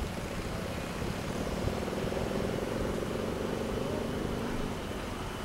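Vehicle engines running with a steady low rumble, heard from inside a car. A faint droning hum comes up about a second and a half in and fades near the end.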